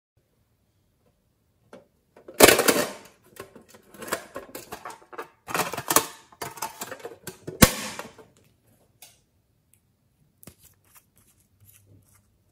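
A small tool scraping and tapping around the inside of an empty metal tin, a run of clattering scrapes with a sharp click near the end of it. A few faint clicks follow.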